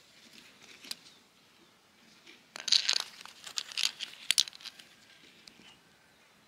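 Crinkly rustling with a few sharp clicks, lasting about two seconds from near the middle, as cooked leafy greens are lifted by hand out of a bowl while a meal is served.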